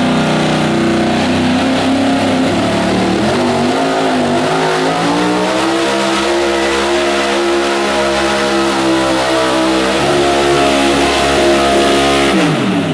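Gasoline-powered 1970s Dodge pull truck's engine at full throttle under load while pulling a sled. The revs sag and waver early, then climb and hold steady and loud. Near the end the revs fall off sharply as the throttle is lifted at the end of the pull.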